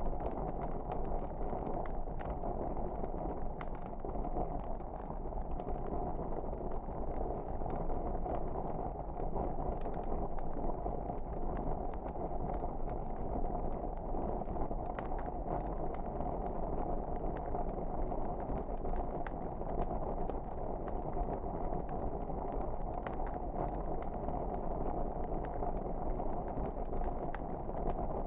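Wood fire burning in a fireplace: a steady low rush of flames with frequent small crackles and pops.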